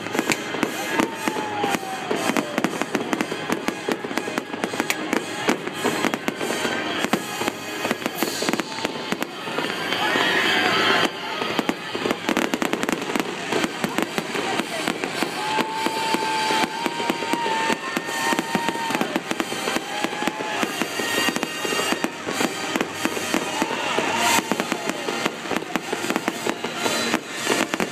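New Year's Eve fireworks going off in quick succession: a continuous run of sharp bangs and crackling.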